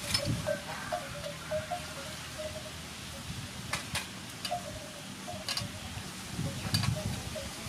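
A handful of light metallic clinks, hands and a ring knocking against steel trays while sticky rice flour dough is kneaded, one pair close together about four seconds in. Short repeated high notes run in the background.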